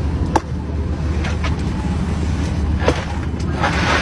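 Steady low hum of an airliner cabin, with a few sharp clicks and knocks and some passenger murmur near the end.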